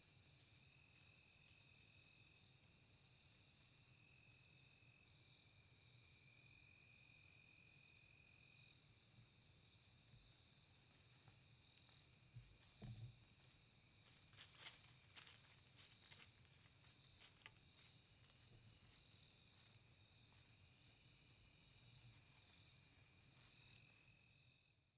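Crickets and other insects calling in a steady high chorus, with a lower trill coming and going. A few faint clicks and a soft thump sound near the middle.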